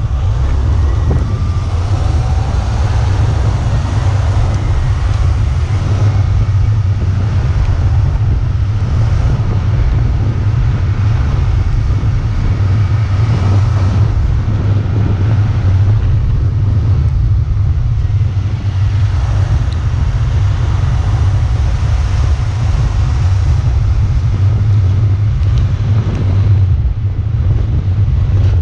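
Heavy wind buffeting the microphone of an action camera riding down a mountain road at speed on a bicycle, a steady low rumble with a hiss of tyres on wet asphalt underneath.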